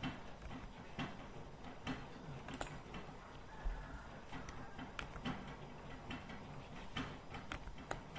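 Computer mouse and keyboard clicks, short irregular taps about once a second, with one soft low thump about three and a half seconds in.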